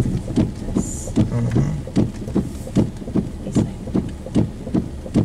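Inside a car driving on a rain-soaked, flooded street: steady noise of the tyres on the wet road, with a run of sharp taps about three a second.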